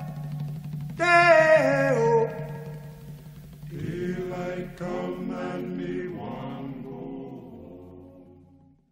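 Closing music with chant-like held tones. About a second in, a held tone steps down in pitch. From about four seconds in, a softer run of held chords follows and fades out near the end.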